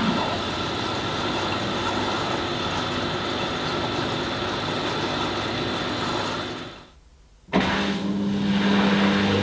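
Hoover Nextra HNL662 washing machine running, a steady motor hum and whine. About seven seconds in the sound fades away, then comes back abruptly with a stronger low hum.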